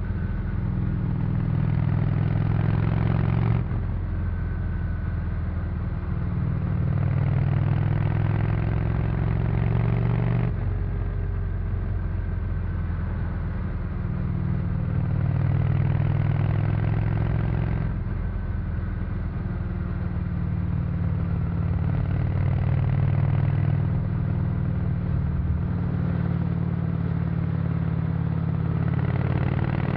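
Honda VT 600 C Shadow's V-twin engine through its stock exhaust, running under way on the road. Its note rises and falls, and changes abruptly three times, at about four, ten and eighteen seconds in.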